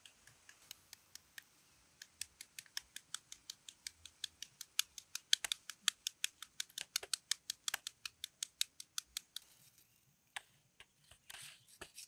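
Kitchen knife blade scoring a red onion held in the hand: a long run of crisp, even cuts, about five a second, then a few slower cuts and a short scraping slice near the end.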